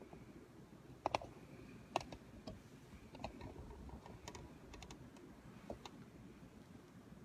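Faint, irregular light clicks and taps, about a dozen, over a low steady room hum; the sharpest come about one and two seconds in.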